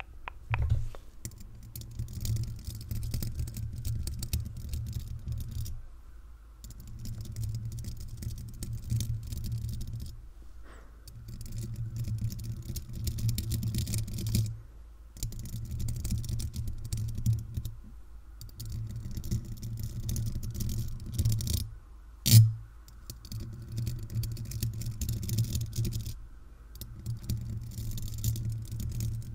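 Paper clips worn over fingernails scratching and tapping on the metal mesh grille of a Blue Yeti microphone, very close to the capsule, in bouts of a few seconds with short pauses between. One sharp, much louder knock comes about three quarters of the way through.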